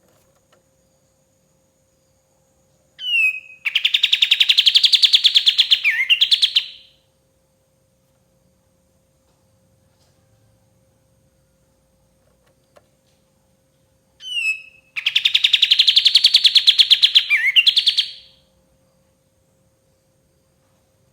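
Kapas tembak songbird singing two matching phrases about eleven seconds apart, each a short falling whistle followed by a fast, rattling trill of about three seconds that ends in a quick sweep.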